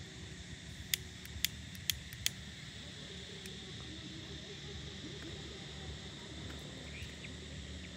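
Steady high-pitched insect drone over a low rumble, with four sharp clicks between about one and two and a half seconds in.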